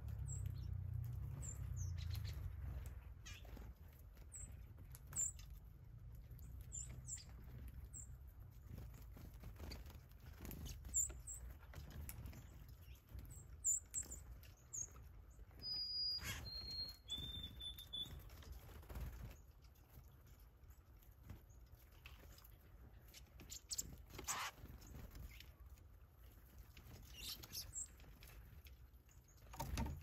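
Small songbirds at a feeder: scattered short, very high chips and calls, and about halfway through a clear whistled song of three held notes, each lower than the last. Sharp taps and wing flutters come from birds landing and pecking at the feeder, over a low steady rumble.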